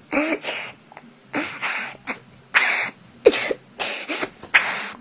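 A boy laughing in a string of about seven short, breathy, wheezing bursts.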